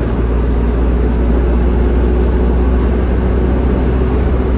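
Inside the cabin of a moving bus: the engine's steady low rumble mixed with road noise, with a faint steady hum above it.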